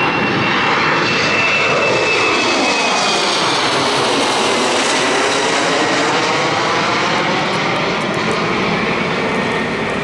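Embraer 195 regional jet's twin GE CF34-10E turbofans at takeoff climb power as the jet passes directly overhead and away: a loud, steady roar with a high fan whine that slowly drops in pitch, and a sweeping, phasing quality as it goes over.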